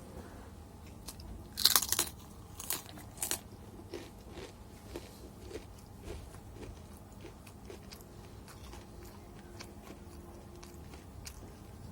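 A person biting into fried chicken, with a loud cluster of crunches about one and a half seconds in and two more shortly after, then chewing with soft wet clicks about twice a second.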